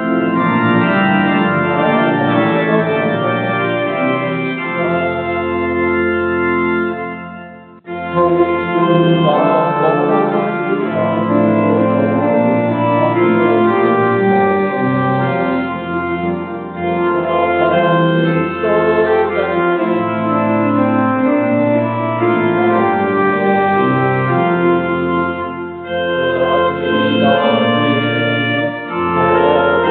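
Church organ playing a hymn in sustained chords, changing every second or so. It stops briefly between phrases, with a clear break about eight seconds in and shorter pauses later.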